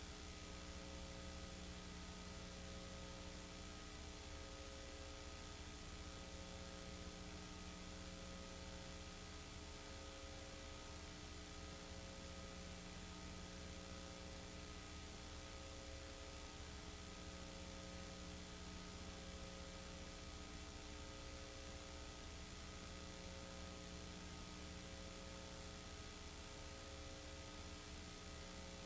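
Low, steady electrical mains hum with hiss: the noise floor of a silent film's soundtrack. A faint tone in the hum pulses on and off about every second and a half.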